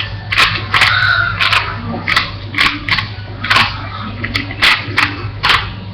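Plastic Rubik's cube clacking as its layers are turned quickly by hand: a run of sharp clicks, about two a second.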